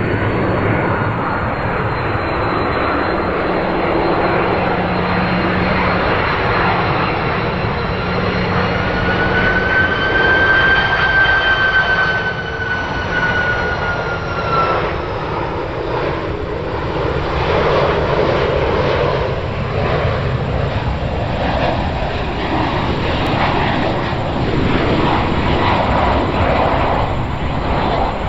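Jet airliner's engines passing at close range: a steady roar with a high turbofan whine that bends slightly in pitch and fades about halfway through, leaving a broader, rougher rumble.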